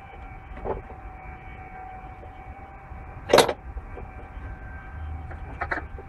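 A steady mechanical hum, with a single sharp metallic clank about three and a half seconds in and a couple of lighter knocks near the end, as a metal oil can is handled over the transmission fill tube during an ATF top-up.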